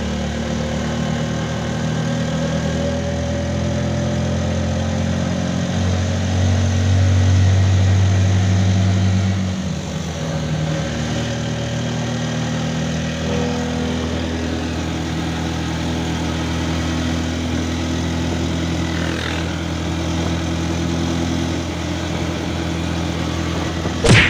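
Motor vehicle engine running steadily while driving along a road, heard from inside the open-sided passenger cab. The engine hum swells louder for a few seconds about a quarter of the way in, then eases back. A sharp knock comes just before the end.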